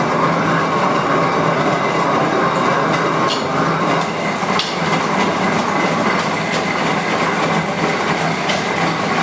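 LeBlond No. 2 horizontal milling machine running under power, its gear drive spinning with the power feeds on all three axes engaged: a steady, even mechanical running noise with a faint hum and scattered light clicks. The owner hears the electric motor bobbing or the drive belt slipping a little.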